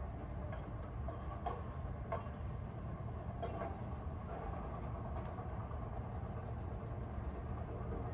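Steady low background rumble, with a few faint soft dabs and smears of a silicone pastry brush spreading tomato sauce over a pita in an air fryer basket.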